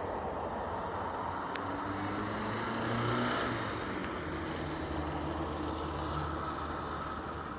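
2M62 diesel locomotive's two-stroke V12 engines running as the train departs, a steady low drone that swells briefly about three seconds in.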